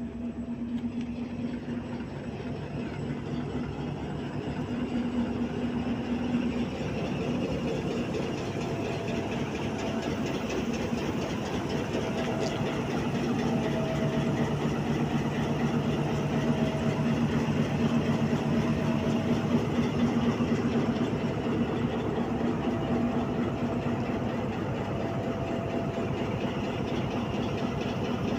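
Diesel-electric locomotive passing slowly at close range, its engine running with a steady low hum that grows louder over the first few seconds as the engine hood comes alongside.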